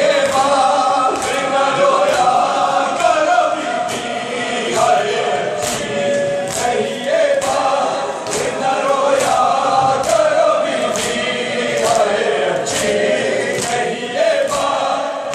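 Crowd of men chanting a Shia nauha together in chorus. Over it comes the matam: many hands striking bare chests in unison, a steady beat of sharp slaps a little more than once a second.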